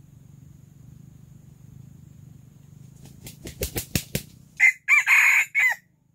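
Rooster beating its wings in a quick run of about seven claps that speed up, then crowing once, a short crow of just over a second.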